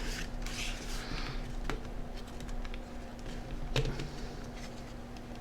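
Small plastic clicks and scraping as the casing and screen assembly of a Sharp Zaurus PDA are handled and pressed into place: soft scraping in the first second, then two sharp single clicks, over a faint steady hum.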